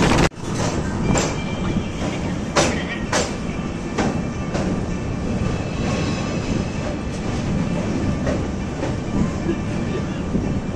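Passenger train running along the track, a steady rumble with scattered sharp clicks of the wheels passing over rail joints. The clicks are strongest in the first few seconds.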